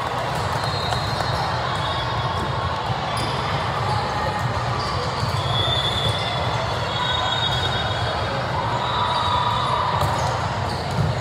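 Echoing din of a busy multi-court volleyball hall: indistinct crowd chatter, balls being hit and bouncing, and brief high-pitched squeaks now and then.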